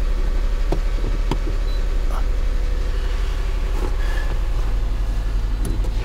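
Mitsubishi Endeavor's 3.8-litre V6 running at idle, a steady low rumble heard from inside the cabin, with a few faint clicks.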